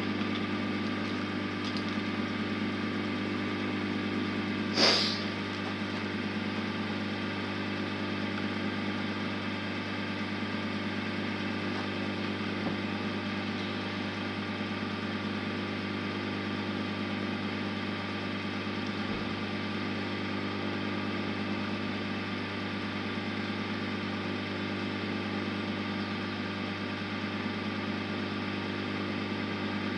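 Wood lathe motor running steadily with a low hum. A brief sharp sound cuts in about five seconds in.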